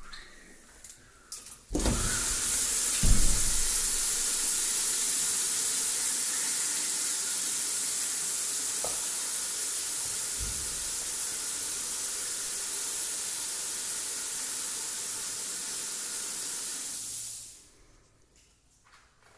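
Water running steadily from a tap with a loud, even hiss. It starts about two seconds in and stops shortly before the end.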